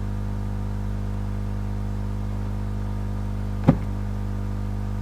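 Steady low electrical hum with a single short click about three and a half seconds in.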